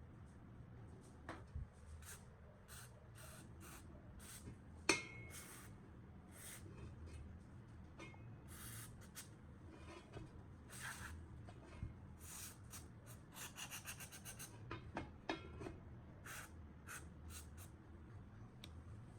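Hand tools working on the old fan's metal parts: a series of short scraping and rubbing strokes, a sharp metallic click about five seconds in, and a quick run of ticks near the middle.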